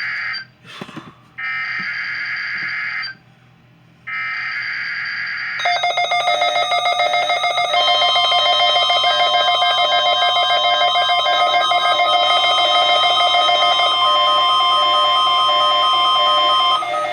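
NOAA Weather Radio weekly test signal: the end of one Emergency Alert System digital header burst and then two more, each about a second and a half long with about a second's gap between them. About five seconds in, a loud, steady warning alarm tone takes over and holds for about eleven seconds.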